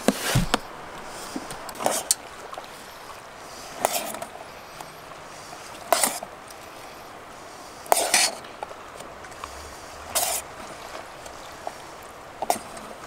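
Spoon scraping and clinking against a camp cooking pot as butter chicken is stirred and spooned out, about seven short scrapes roughly every two seconds.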